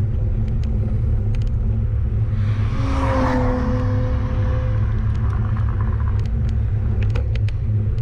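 Steady low rumble of wind and road noise on a bicycle-mounted action camera riding along a paved road. About two and a half seconds in, a car swells up and passes in the other lane, its engine hum holding for a couple of seconds before fading.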